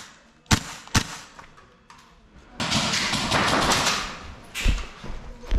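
Two single shots from a Tokyo Marui MWS gas blowback airsoft rifle, half a second apart. Then comes about a second and a half of rustling noise, and two thuds near the end.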